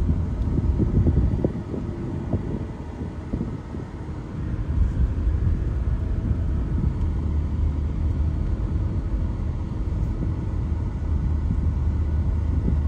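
A moving car's steady low road rumble, easing off for a moment between about two and four seconds in.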